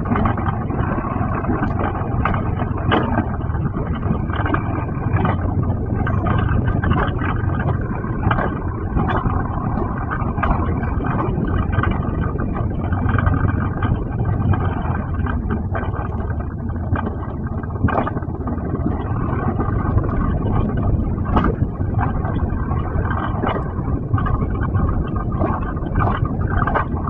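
Alpine coaster sled running fast down its steel rail track: a continuous rumble of the wheels on the rails, with frequent short clicks and knocks.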